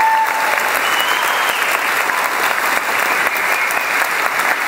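Audience applauding steadily, with a couple of held whoops from the crowd near the start and about a second in.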